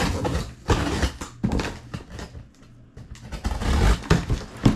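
Cardboard shipping box being opened by hand: irregular rustling and scraping of cardboard and packing paper, with a few dull thumps, the heaviest near the end.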